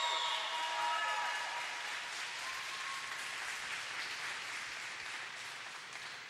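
A small audience applauding, the clapping slowly dying away toward the end.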